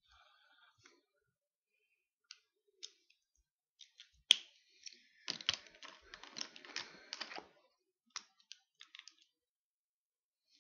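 Pen and paper being handled on a tabletop: scattered light clicks and taps, one sharp click about four seconds in, then about two seconds of rustling and scraping, and a few more taps.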